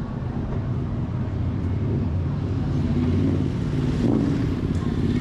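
A motor vehicle engine running with a steady low rumble, in city street traffic.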